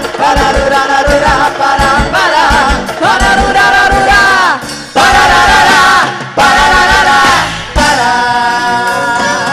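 Loud festa junina quadrilha music with a steady beat and a melody of long held notes, three of them one after another in the middle.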